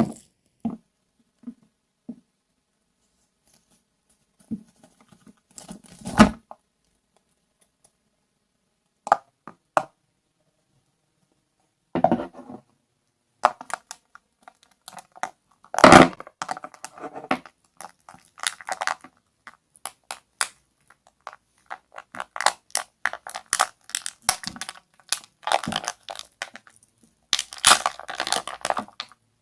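Squishy ice being crushed and cracked by hand: irregular crunching, crackling bursts with short pauses between them, coming thicker and faster over the last few seconds.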